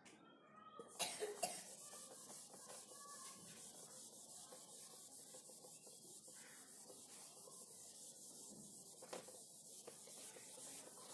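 Handheld whiteboard duster rubbing back and forth across a whiteboard: a steady scratchy hiss of quick wiping strokes, after two short louder sounds about a second in.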